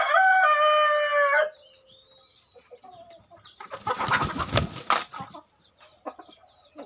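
A rooster crowing once, a loud call that steps in pitch and lasts about a second and a half, among faint high chirps from other birds. About four seconds in comes a short noisy burst, likely chickens scuffling or flapping.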